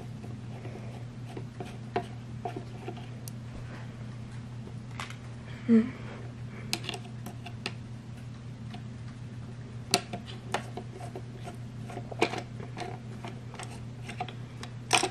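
Screwdriver turning out the small screws that hold the sounder board in a plastic alarm case: scattered light clicks and taps of metal on screw heads and plastic, over a steady low hum.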